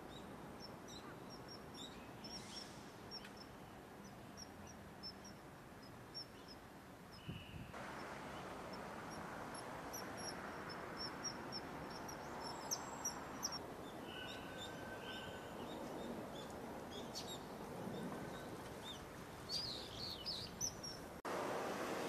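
Short, high bird chirps in quick series over a steady background hiss, with a few lower calls in the second half.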